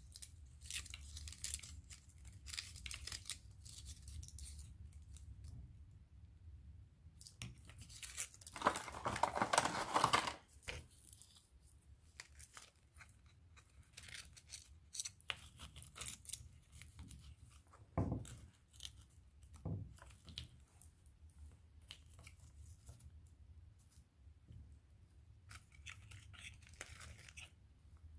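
Hands handling small craft decorations: light rustling, snipping and taps. A longer, louder rustling or tearing sound about eight seconds in, and a few sharp clicks later on, over a low steady hum.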